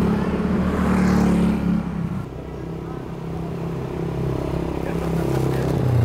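Small motorcycle engines passing close by: one fades away about two seconds in, and another draws nearer and grows louder toward the end.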